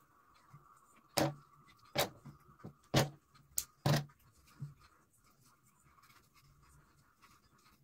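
Plastic spring clamps being released and taken off a small MDF box one at a time: four sharp clacks about a second apart, with lighter knocks between them.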